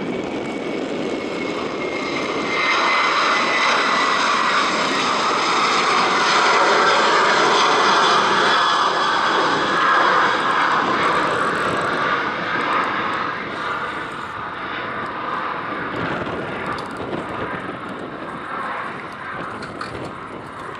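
Airbus A330 twin jet engines at take-off thrust as the airliner climbs away: a loud jet roar with a high whine falling slightly in pitch over the first few seconds. The roar swells about two seconds in, then slowly eases from about halfway as the aircraft climbs out.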